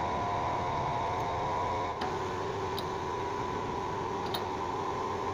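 Steady machinery hum in a metal workshop, with a few faint light ticks from the lathe's cutting tool being handled.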